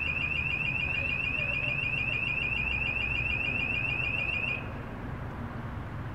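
Electronic buzzer on a Formula Student electric race car sounding a rapid, high-pitched train of short rising beeps, about ten a second, that stops about four and a half seconds in. It is typical of the warning signal such a car gives as it is switched live and made ready to drive.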